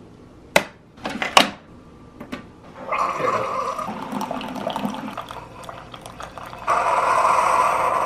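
Single-serve pod coffee maker brewing into a ceramic mug. A few sharp clicks and knocks come in the first couple of seconds as the mug is set on the drip tray. Then, from about three seconds in, the pump hisses and coffee streams and gurgles into the mug, the hiss growing louder and steadier near the end.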